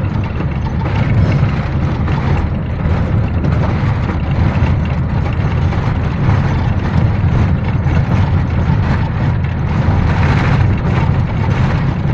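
A minibus in motion, heard from inside the cabin: a steady low rumble of engine and road noise.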